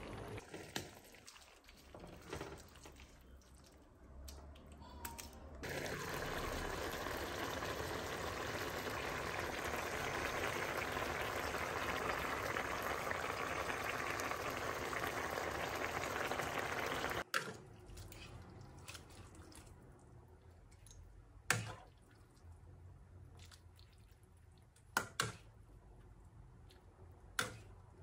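Tomato broth with pasta and squash greens bubbling at a steady boil in a wide aluminium pan for about ten seconds, then cutting off suddenly. A few sharp knocks follow later.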